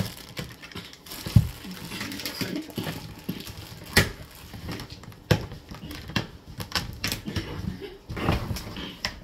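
Handling of plastic parts: a plastic bag rustling and white plastic clips clicking and knocking as they are fitted onto the side of a plastic storage box, with a few sharp clicks scattered through.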